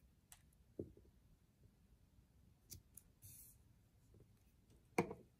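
Quiet handling of paper cut-outs and a glue stick on a tabletop: a few faint taps and clicks, a brief rustle about three seconds in, and a soft knock near the end.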